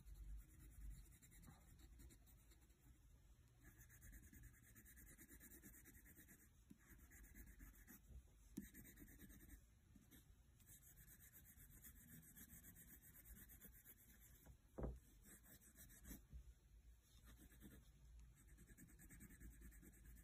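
Faint scratching of a wax crayon rubbed across sketchbook paper in patches of short back-and-forth colouring strokes, with a couple of light knocks.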